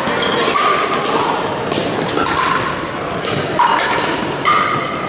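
Pickleball rally: paddles striking the hollow plastic ball in a string of sharp pops a second or two apart, echoing in a large gym.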